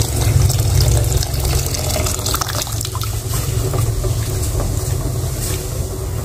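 Fresh coconut water pouring from a hole in a coconut and trickling and splashing into a steel pot of mung beans, over a steady low rumble.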